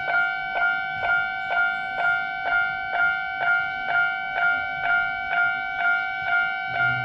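Japanese railroad level-crossing alarm sounding its 'kan-kan' warning, a ringing two-tone ding repeating evenly about twice a second. Near the end a low steady hum joins in.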